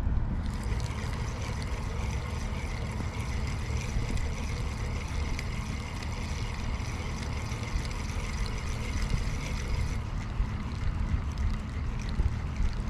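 Steady wind buffeting the microphone by the open sea, a low fluttering rumble under a soft even hiss.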